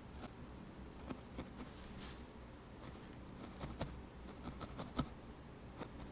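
Felting needle stabbing into needle-felted wool: scattered short, irregular clicks, more frequent in the second half, the sharpest one about five seconds in.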